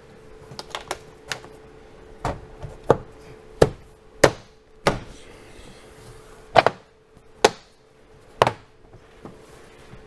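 Toyota 4Runner rear-hatch plastic trim panel being pushed and slapped into place by hand: about a dozen sharp knocks and snaps, irregularly spaced, as its pressure pins and retaining clips seat.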